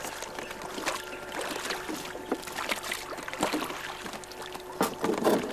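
Scattered knocks and clatter aboard a yacht over a wash of water, with a louder burst of knocking near the end.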